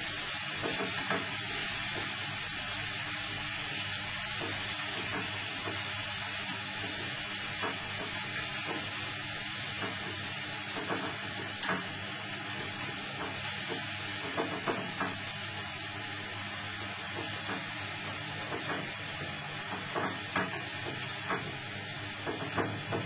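Food sizzling in a frying pan over a gas flame, with a metal utensil stirring and scraping against the pan. The utensil clicks and taps come more often in the second half.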